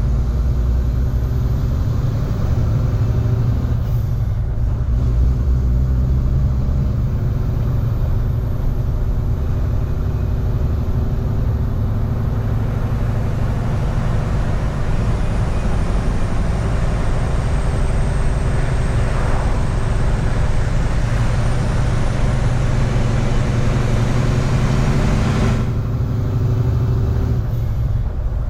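Semi truck's diesel engine and road noise heard from inside the cab while driving, pulling a loaded refrigerated trailer: a steady low rumble with a drone of engine tones. The hiss over it drops away briefly about four seconds in and again near the end.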